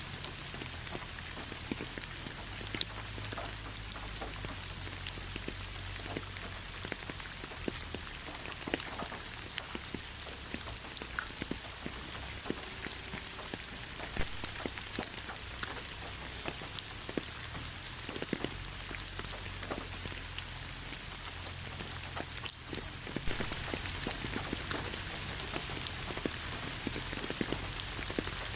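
Steady rain: an even hiss with many separate drops ticking on a surface. The sound dips briefly about three quarters of the way through, then carries on a little louder.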